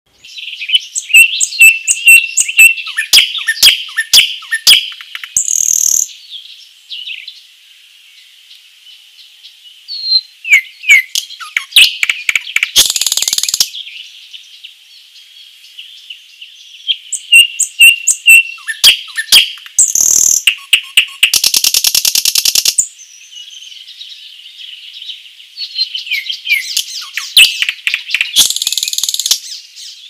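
Nightingale singing in separate phrases a few seconds apart. Each phrase is a rapid run of sharp repeated notes, short clear whistles and dense buzzy trills.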